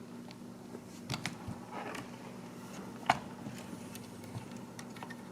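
A few light clicks and taps, the sharpest about three seconds in, as small plastic parts and a screw are handled while an electric bidet seat is being taken apart, over a faint steady hum.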